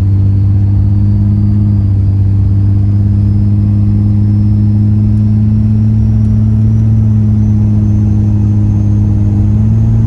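Diesel pickup truck engine pulling under acceleration, heard from inside the cab as a steady low drone. Over it a faint high whistle slowly rises in pitch and then levels off: the turbocharger spooling up.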